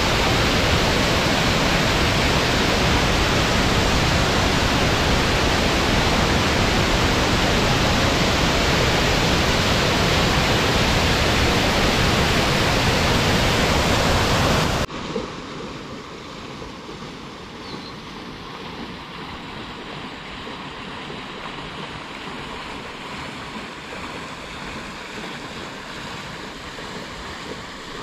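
Loud, steady rush of a waterfall. About halfway through it cuts off suddenly to a quieter rush of flowing water.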